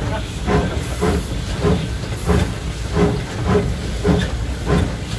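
1875 Baldwin 4-4-0 steam locomotive INYO running, heard from inside its cab: steam hissing steadily over the engine's even working beat, about two to three strokes a second.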